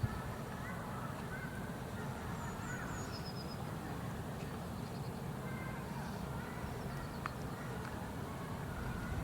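Faint bird calls and short high whistles over a steady low rumble of outdoor ambience.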